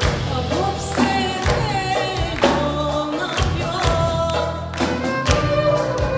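Live Greek zeibekiko song played by an instrumental ensemble with a choir singing, carried by regular percussive strokes.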